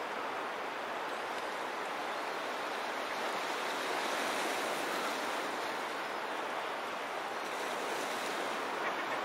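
Steady, even rushing of surf on a beach, with no individual wave breaks standing out.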